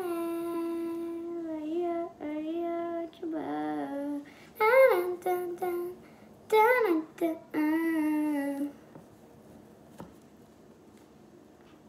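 A young girl singing a tune in long held notes with gliding pitch, stopping about eight and a half seconds in. After that it is nearly quiet, with one small click about ten seconds in.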